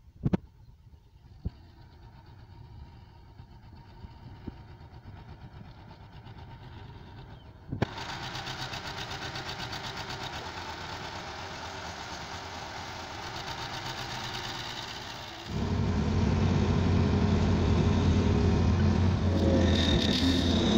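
Farm tractor engine running while its front loader lifts hay bales onto a trailer, faint at first and louder from about eight seconds in. About three-quarters of the way through a much louder, deeper engine close by comes in suddenly.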